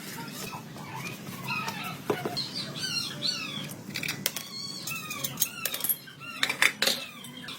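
Small birds chirping repeatedly in short, falling chirps, with a few sharp metallic clicks of parts being handled.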